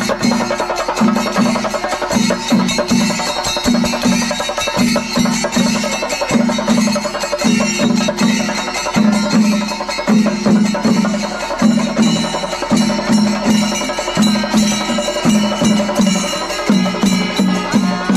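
Kerala temple drum ensemble (chenda melam) playing continuously: dense, fast strokes in rapid groups, with low booming drum tones and high cymbal ringing.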